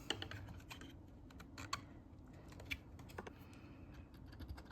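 Faint, scattered light clicks and taps, about half a dozen at irregular intervals, from small laser-cut wooden pieces being handled and set together.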